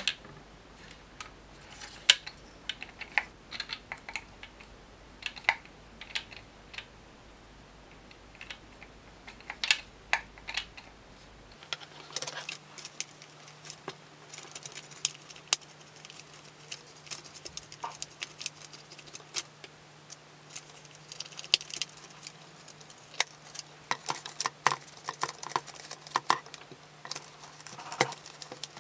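Hard plastic parts of a Dyson DC62 dust bin clicking, tapping and knocking as they are handled and wiped, with short bursts of a microfiber cloth rubbing on the plastic.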